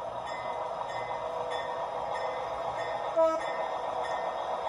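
G scale model diesel locomotive's sound unit: a bell dinging about every half second over a steady hum, and one short horn toot about three seconds in, the loudest sound.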